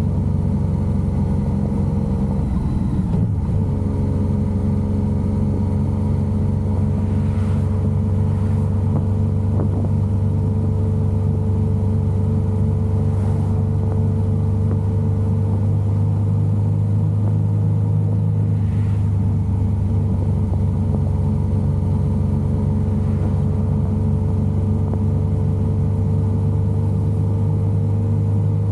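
Yamaha XSR900's inline three-cylinder engine running at a near-steady pitch, with a brief change in pitch about three seconds in.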